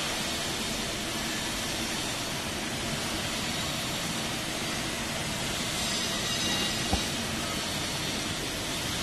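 Steady rushing noise with no clear pitch, like machinery or ventilation noise, and one light knock about seven seconds in.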